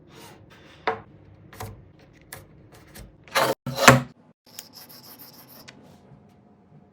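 Woodworking handling sounds: several sharp knocks of wood being set down, two short, loud rasping strokes in the middle, then a quick run of about six light ticks.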